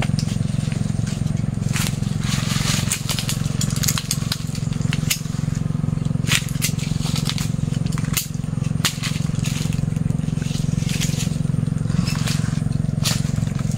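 Branches of a jackfruit tree being pruned: dry twigs and leaves crackling and snapping in irregular sharp cracks as they are cut and pulled away, over a steady low hum.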